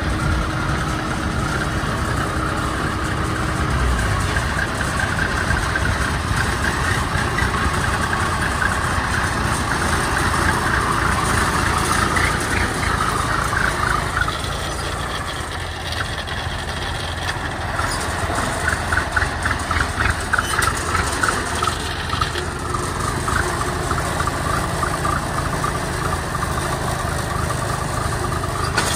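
Engine of a small tracked farm carrier running as the machine drives along, with quick regular beats in the sound in the middle stretch.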